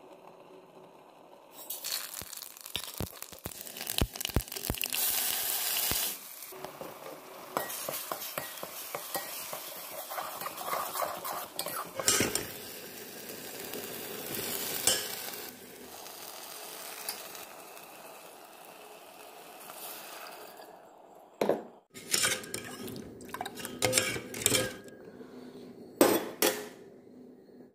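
Masala paste frying and sizzling in a steel pan while a steel ladle stirs it, clinking and scraping against the pan. Near the end, a run of separate metal clinks and scrapes of the ladle on the steel pot.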